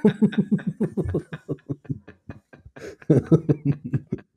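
Laughter after a joke: a run of quick, rhythmic ha-ha pulses that fades in the middle and swells again about three seconds in.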